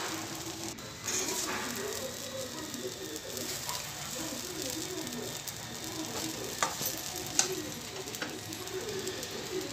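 Vegetable poha sizzling in a pan on the stove as a metal spatula stirs it, with a few sharp clicks of the spatula knocking against the pan.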